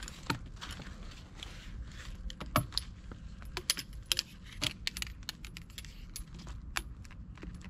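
Trekking poles being handled and readied: many irregular sharp clicks and clinks of the pole sections and fittings, over a low steady rumble.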